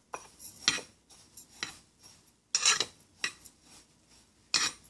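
A utensil stirring a dry za'atar spice mix with toasted sesame seeds in a small bowl, scraping and clinking against the bowl in irregular strokes.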